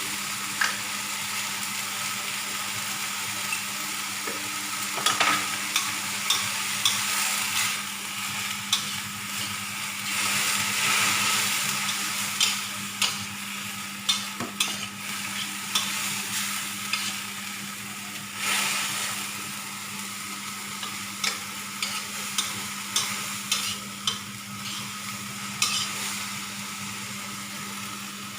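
Food sizzling in a frying pan while being stirred, the utensil scraping and clicking against the pan many times.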